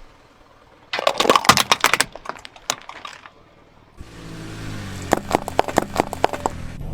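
Crunchy toys cracking and snapping under a car's tyre, in a quick run of crackles about a second in. From about four seconds a second run of snaps plays over the car's engine running steadily.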